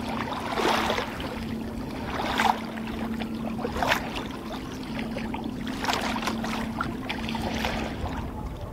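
Kayak paddle strokes splashing in choppy water, five strokes about every one and a half to two seconds, over a steady wash of small waves.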